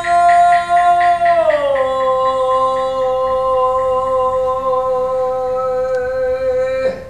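A man's voice holding one long chanted note, sliding down to a lower pitch about a second and a half in and holding it until it stops abruptly near the end. Under the start, evenly spaced clicks, about four a second, fade away.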